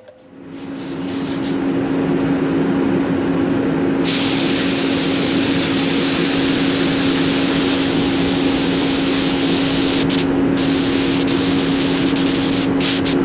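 Compressed-air gun blowing a loud steady hiss, over a steady motor hum. The hiss builds up over the first second or so and breaks off briefly twice near the end.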